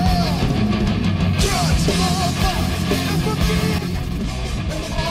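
Rock music with electric guitar and drums.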